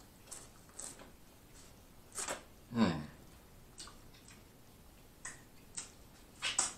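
Close-up wet mouth sounds of eating corn on the cob: scattered smacks and chewing clicks, with a short "mmm" that falls in pitch about three seconds in.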